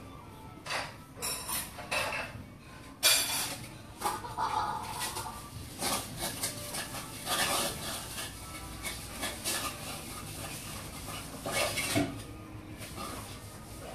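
Irregular light clicks and clatter of small hard objects knocking together, the sharpest knock about three seconds in and another cluster near the end.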